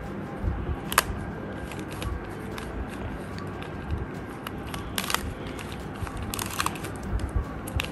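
Banana Cube twisty puzzle being turned by hand: scattered plastic clicks and rattles as its layers turn, with a sharp click about a second in and a cluster of clicks about five to seven seconds in, over soft handling bumps.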